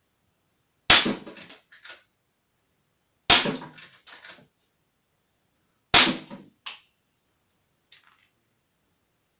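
Walther Lever Action rifle firing three shots about two and a half seconds apart. Each shot is followed about a second later by a smaller click as the lever is worked.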